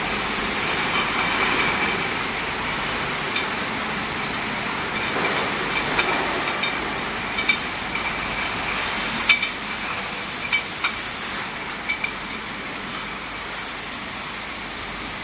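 Bottle-washing machine running steadily, with repeated bursts of spray hiss and a few sharp clinks.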